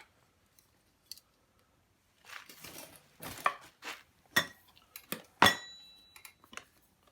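Gear being handled and set down: a short rustle, then a run of knocks and clinks. The loudest is a metal clink about five seconds in that rings briefly.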